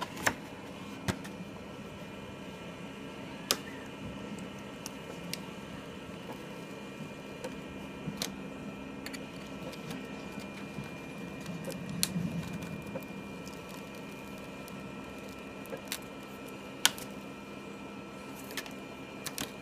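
Freshly cut vinyl being weeded by hand: light handling and peeling of the vinyl, with scattered sharp clicks, over a steady faint hum.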